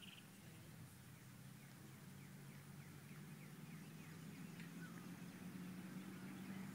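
Near silence in the open air: a steady low hum, with a few faint, short falling bird chirps about halfway through.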